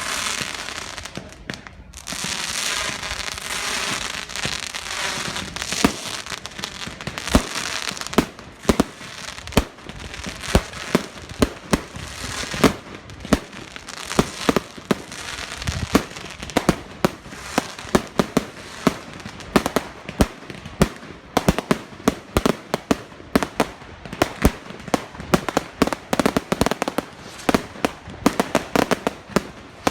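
Fireworks going off: a dense crackle for the first several seconds, then a long run of sharp bangs in quick, irregular succession, often several a second.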